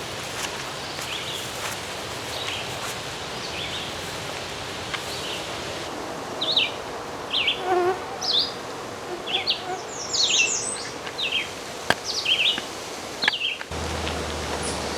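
Outdoor woodland ambience: a steady insect buzz with many short, high bird chirps repeating over it. Near the end it cuts to a steadier hiss with a low hum.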